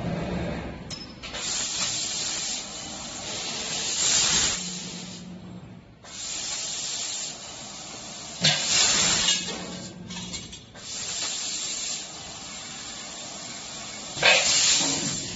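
Fiber laser tube cutting machine cutting a rectangular tube: the assist gas hisses from the cutting head in on-and-off bursts of one to three seconds, with a low hum between some of them.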